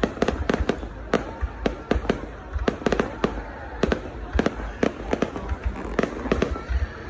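Fireworks going off in a rapid, irregular series of sharp bangs, about two to four a second, over a continuous crackling haze and low rumble.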